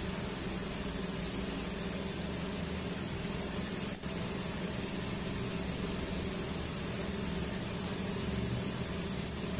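TIG welding arc on stainless steel pipe, filler rod fed in by hand: a steady hiss over a low hum, with a brief dropout about four seconds in.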